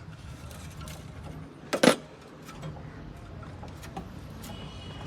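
Scattered small metallic clicks and clinks of hand tools at work on a car engine, with one loud sharp knock about two seconds in, over a steady low hum.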